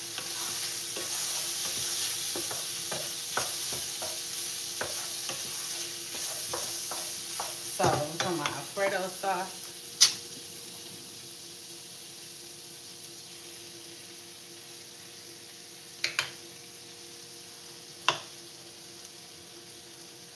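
Sliced beef kielbasa with red pepper and shallot sizzling in a frying pan. A wooden spoon scrapes and taps the pan through the first few seconds, then the sizzle slowly dies down. A short wavering sound comes about eight seconds in, followed by a few sharp clicks.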